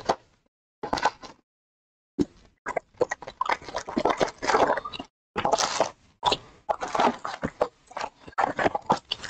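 Sealed trading-card pack wrappers crinkling and rustling against each other and the cardboard hobby box as packs are pulled out and stacked. The sound comes in irregular bursts with short silent gaps.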